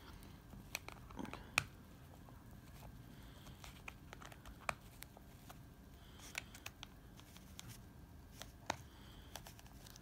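Scattered small clicks and taps of hard plastic as the shaver's brittle plastic housing and clips are handled and worked apart by hand, the loudest click about a second and a half in.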